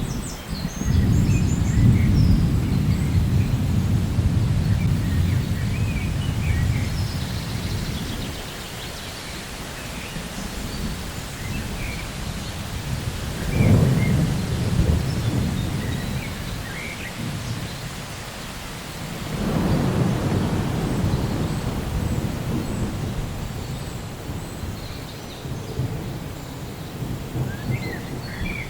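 Thunder rolling over steady rain. A long low rumble sets in about a second in, a sharper crack of thunder comes near the middle, and another rumbling roll follows about two-thirds of the way through.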